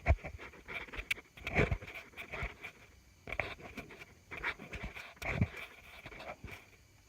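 Heavy panting in irregular bursts, mixed with occasional sharp knocks and clanks.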